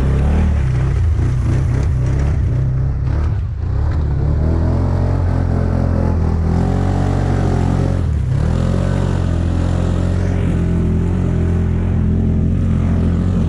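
Off-road vehicle engine running hard and being revved, its pitch climbing about four seconds in, dipping briefly around eight seconds, then rising again, as the machine is worked to get out of a deep muddy rut.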